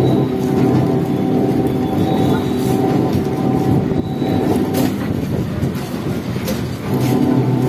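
Electric MEMU train moving slowly along a platform: the steady hum of its electric equipment, with a few sharp clacks from the wheels. The hum dips briefly near the end, then comes back.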